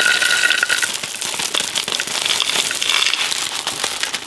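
Plastic sheeting crinkling and crackling as it is handled, a dense run of small crackles.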